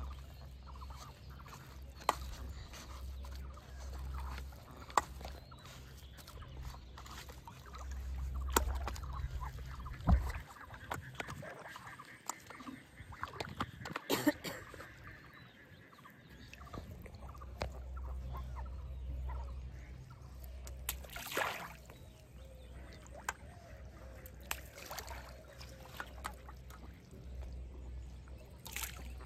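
Ducks quacking now and then on the pond, over a patchy low rumble and scattered sharp clicks.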